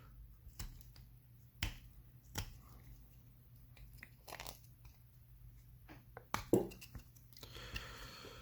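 Faint scattered clicks, crinkles and small tearing sounds of waterproofing foam tape being handled on a soft plastic funnel, at irregular intervals.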